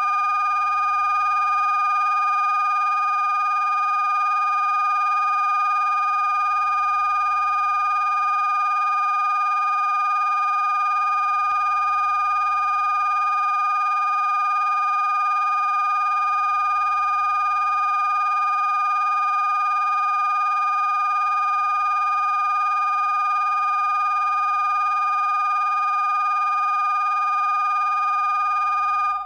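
Synthesized electronic signal tone, several pitches sounding together, held perfectly steady and then cutting off suddenly at the very end.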